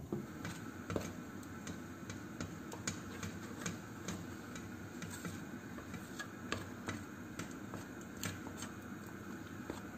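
A metal spoon clicking and scraping against a steel bowl, irregularly, about once or twice a second, while stirring white chocolate as it melts. A steady low hum runs underneath.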